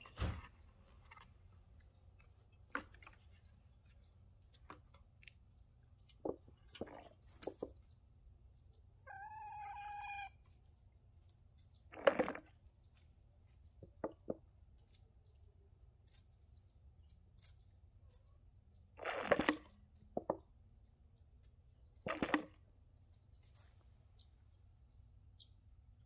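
Scattered light clicks and knocks, most likely chickens around a homemade bottle waterer. A few louder knocks or rustles come about 12, 19 and 22 seconds in. One held call, about a second long, comes about nine seconds in.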